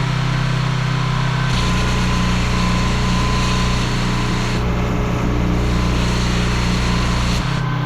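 Small petrol engine of a pressure washer running steadily, its note shifting about a second and a half in and again near the end as the load changes.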